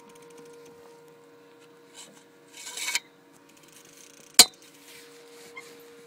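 A steady low hum, with a short rush of noise that swells about two and a half seconds in and a single sharp knock a little past four seconds, the loudest sound.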